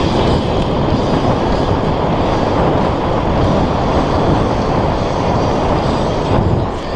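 Wind buffeting the camera's microphone and mountain-bike tyres rolling fast over a dirt trail: a loud, steady rumble that dips briefly near the end.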